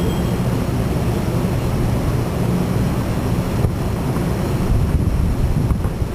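A steady low rumble with a couple of faint bangs from a distant fireworks display, about halfway through and near the end.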